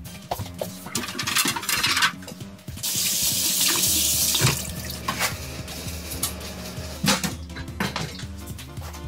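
Kitchen tap running into a stainless steel sink as a pan is rinsed under it, in two spells, the second from about three seconds in. Pans and dishes knock and clatter as they are handled.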